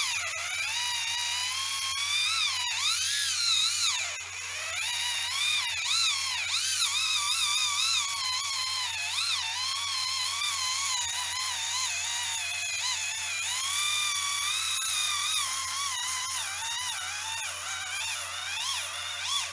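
Kemei electric callus remover's small motor whining as its rotating roller files dry, hard skin on a heel. The high whine wavers up and down in pitch as the roller is pressed on and eased off.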